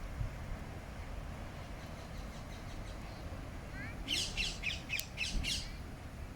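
Rose-ringed parakeets calling. Faint screeches at first, then about four seconds in a quick run of six or seven loud, harsh screeches, over a low background rumble.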